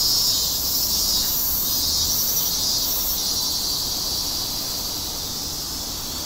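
Insects shrilling in a steady high-pitched chorus from the trees, with a low rumble underneath.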